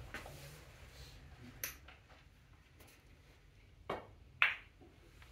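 A snooker shot: the cue tip strikes the cue ball, then about half a second later comes the sharper, louder click of the cue ball hitting an object ball. A faint click comes earlier, about a second and a half in.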